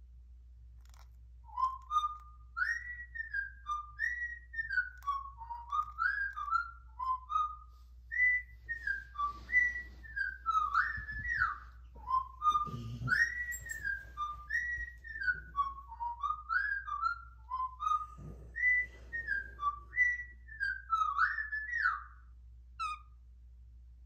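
Cockatiel whistling a tune: a long string of short, swooping whistled notes, with the same phrase repeated after brief pauses. A soft low knock comes about halfway through.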